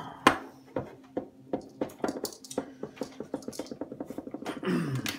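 Handling noise of a Convoy BD06 aluminium flashlight and its USB charging cable: an irregular string of light clicks and knocks, with a sharper knock shortly after the start, as the cable is pulled off and the flashlight is set down on a wooden desk.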